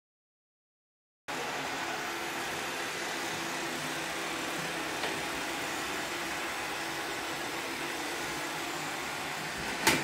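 Roomba robot vacuum running over a hard floor: a steady, even whirr of its motors and brushes with a faint hum, starting about a second in after a silence. A short louder knock comes just before the sound cuts off at the end.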